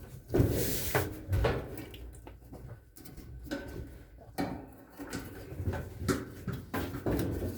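Irregular clunks and knocks, with a short scrape about half a second in, from Whirlpool dryer panels and parts being handled as the dryer is put back together after a belt replacement.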